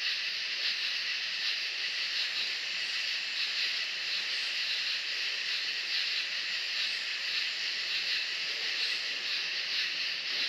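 Steady hiss of R-134a refrigerant flowing from the can through the gauge manifold and hoses into a window air conditioner's system while it is being recharged.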